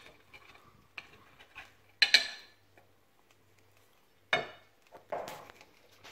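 A serrated table knife clinking and scraping against a ceramic plate as it cuts through a stack of pancakes: a few sharp clinks and scrapes, the loudest about two seconds in and again just after four seconds.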